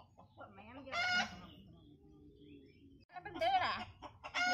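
Chickens calling in the yard: a short sharp squawk about a second in, then a longer run of wavering calls near the end.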